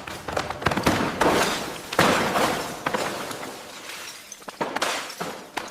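Demolition noise of material breaking and falling: many sharp knocks and clatters, with a few longer crashes that sound like shattering.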